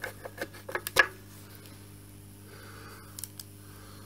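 Screwdriver driving small screws into the metal front cover of a Kirby G4 vacuum cleaner: a run of quick small clicks with a sharper click about a second in, then a few faint clicks later.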